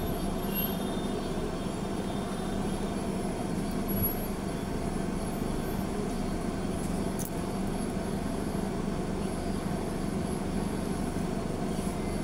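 A car's engine idling, heard as a steady hum inside the cabin while the car stands still in traffic, with one brief click about four seconds in.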